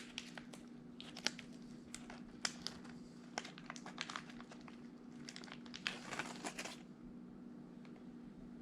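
Crinkling and rustling of plastic packaging with light clicks as small injector rebuild-kit parts are handled, dying away near the end, over a faint steady hum.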